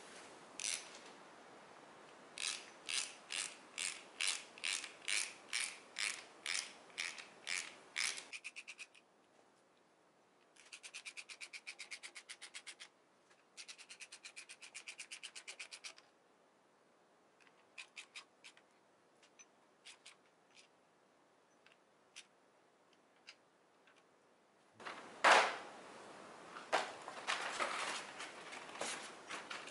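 Hand socket ratchet tightening the water pump bolts on a straight-six engine: rows of ratchet clicks in slow strokes, then two spells of fast, spun ratcheting. Near the end comes a thump and rustling as a cardboard gasket box is set down and handled.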